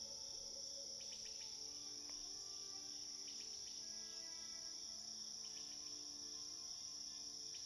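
Steady chorus of crickets chirring, with faint soft music held underneath.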